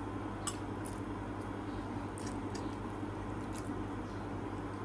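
Soft, wet mouth sounds of someone eating noodles, with a few brief faint clicks, over a steady low background hum.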